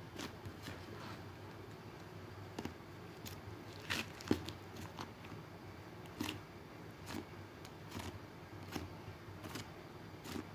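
Cheese-style slime being poked and pressed with fingers, making irregular soft clicks and sticky crackles; one sharper click is loudest a little past four seconds in.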